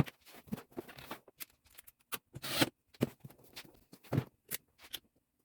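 Handling noises from a box of Pyrex glassware being hung up: a run of short clicks, knocks and rustles, with a louder rustle about two and a half seconds in.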